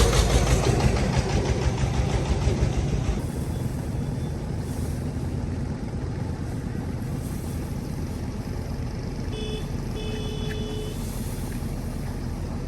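Single-cylinder diesel engine of a công nông farm truck running with rapid firing pulses, loud at first and easing over the first few seconds to a steady lower drone. A horn gives a short beep about nine seconds in, then a longer one about a second later.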